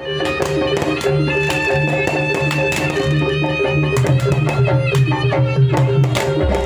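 Instrumental music with percussion strikes over sustained pitched notes and a bass line.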